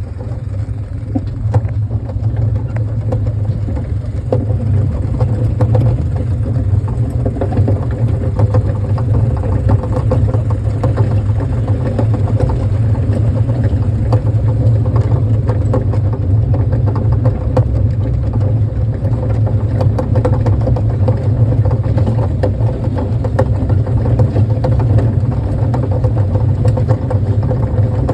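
Kiddie train running, heard from aboard: a loud, steady, low engine-like rumble with faint rattling throughout.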